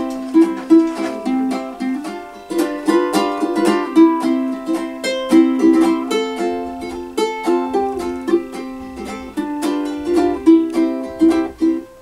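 Solo ukulele played fingerstyle: a plucked melody over chords, notes picked in quick succession and left to ring.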